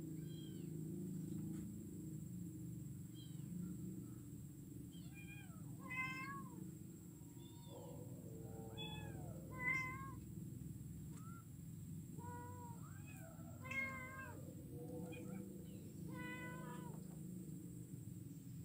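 Kittens meowing again and again: short, high, rising-and-falling mews every second or so, the loudest about six, ten and fourteen seconds in, over a faint steady low background rumble.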